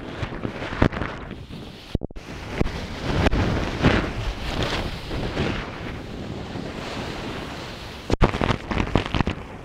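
Big ocean waves breaking and crashing in a continuous rush with irregular surges, with wind gusting on the microphone. The sound drops out briefly twice, about two seconds in and again near the end.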